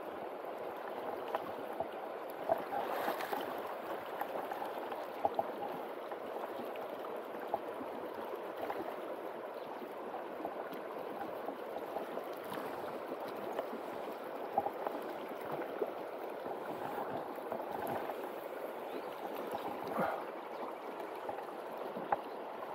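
River current running steadily over a shallow stony bed, with a few brief small splashes at the surface.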